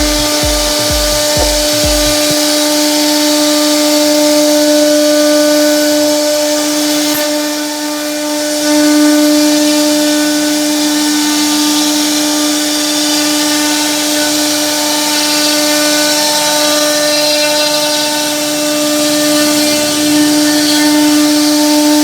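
CNC router spindle running with a steady whine while its bit cuts wood, with a hiss over it throughout.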